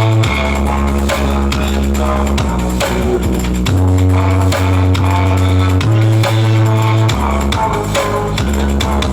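Electronic music with heavy, sustained deep bass notes that shift pitch every second or two over a drum beat, played loud through a large PA sound system under test.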